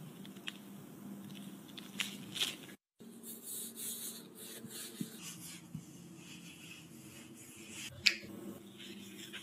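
Faint, soft handling sounds of plastic-gloved hands piping cream filling into mochi dough and pinching the dough closed: light squishing and rustling with a few small clicks. A sharper tick comes near the end.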